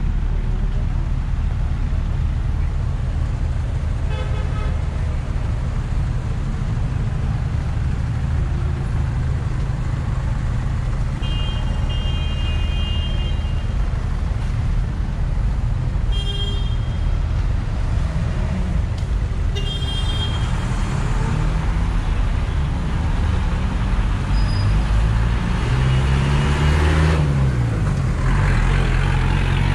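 City street traffic: a steady rumble of cars and buses passing close by, with car horns tooting several times. Near the end a heavy vehicle's engine revs up and eases off.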